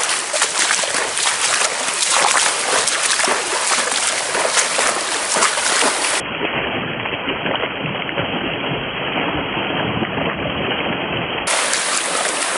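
Continuous splashing of feet wading fast through shallow river water, with a cast net thrown into the water about halfway through.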